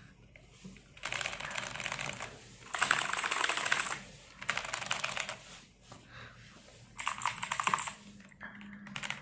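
Fast typing on a Tecware Phantom Elite 87-key mechanical keyboard: rapid clacking of the key switches in about five runs of a second or so each, with short pauses between.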